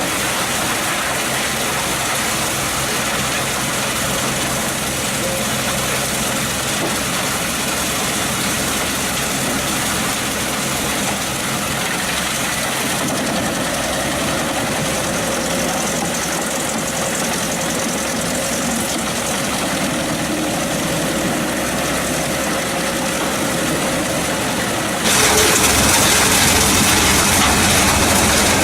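Pezzolato PTH 900 M drum wood chipper running on its Scania DC09 five-cylinder diesel engine, a steady machine noise. Near the end it turns abruptly louder and sharper.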